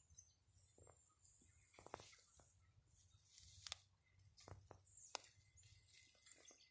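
Near silence in brushy woodland, broken by faint rustling and a few short, sharp snaps and ticks, about three of them standing out, typical of twigs and dry leaves being stepped on or brushed in undergrowth.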